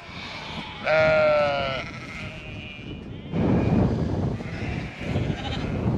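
A Merino sheep in a moving flock bleats once about a second in, one call that falls slightly in pitch, followed by a fainter high call. From about halfway a steady rough noise takes over.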